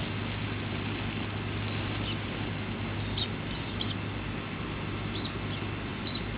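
Steady outdoor background noise with a low hum, and a few faint, short high-pitched chirps or squeaks scattered through it.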